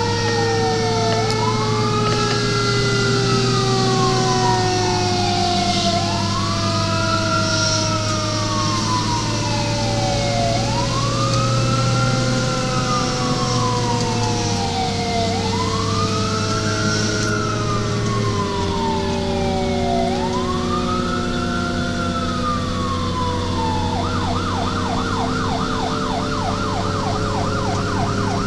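Emergency vehicle siren on a responding fire apparatus sounding a wail, rising and falling about every five seconds, then switching to a fast yelp about 24 seconds in. Under it a second, lower siren tone falls slowly in pitch, over the steady run of the truck's engine.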